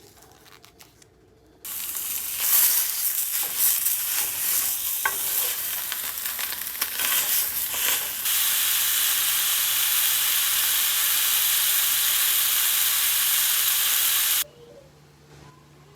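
Food sizzling and frying in a pan, with stirring and utensil clatter at first, then an even sizzle that cuts off suddenly near the end.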